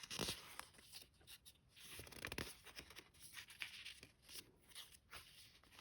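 Faint rustling of paper as journal pages and a small paper booklet are handled, with a few light taps.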